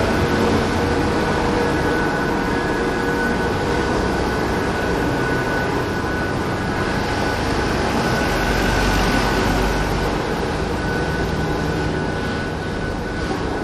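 Steady vehicle engine hum with a thin constant whine over it. A low rumble swells briefly about two-thirds of the way through.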